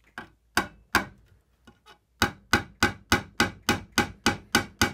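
Claw hammer tapping on the wooden back bow of a Windsor chair at a broken spindle stub, trying to knock the stuck piece out of its hole. A few spaced taps, then from about two seconds in a steady run of light, quick taps, about three or four a second.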